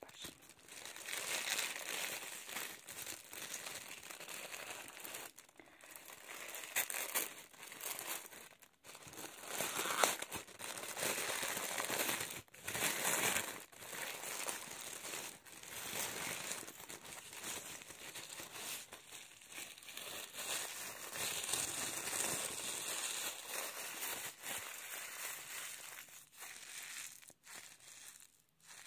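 Plastic wrapping crinkling and rustling as it is handled and pulled off a wooden hairbrush, with brief pauses.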